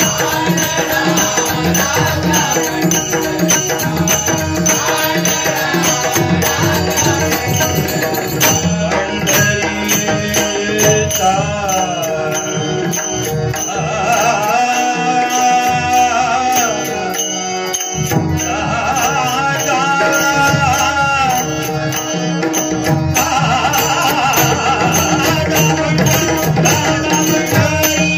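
A male singer sings a Marathi devotional bhajan through a microphone and PA, with long gliding melodic lines over hand-drum accompaniment. The drum drops away for a few seconds around the middle, then comes back in.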